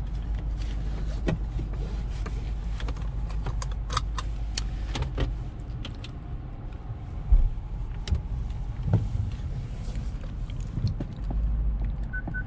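Inside a BMW car cabin: a steady low engine rumble with scattered light raindrop taps on the roof and windscreen, one dull thump about seven seconds in, and the rumble swelling near the end as a rapid, evenly paced electronic warning beep starts up.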